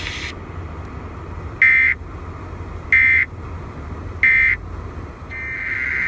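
Emergency Alert System data tones from a car radio: three short, identical screeching bursts about a second and a half apart, the end-of-message code that closes the flash flood warning. Near the end a longer burst of the same data tones begins, the start of the next alert's header, over a low steady rumble.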